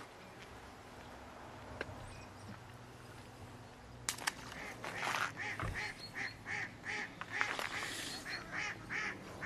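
Geese honking in a rapid series of short calls, about two to three a second, starting about five seconds in. Before that, only a faint low hum.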